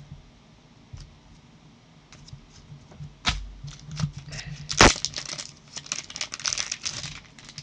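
Plastic card sleeves and top loaders being handled: a sharp click about three seconds in, a louder crack near five seconds, then a run of crinkling and clicking plastic.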